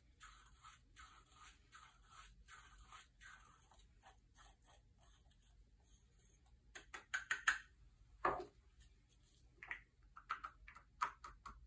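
An ibuprofen tablet being crushed to a fine powder in a hand pill crusher: faint, repeated grinding scrapes for about six seconds, then a cluster of sharp plastic clicks, a single louder knock about eight seconds in, and a few light taps.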